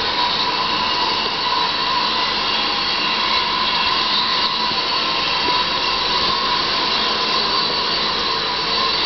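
A steady whirring hiss with a thin high whine running under it, unchanging throughout.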